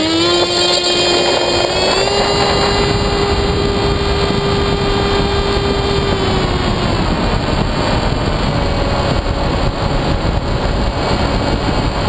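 Electric motor and propeller of a Skywalker FPV plane heard from its onboard camera: a steady high whine just after spooling up, over heavy wind rush on the microphone. About seven seconds in the motor whine fades, leaving mostly wind.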